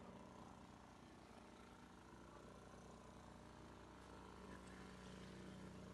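Near silence with a faint, steady low hum of a distant motor running.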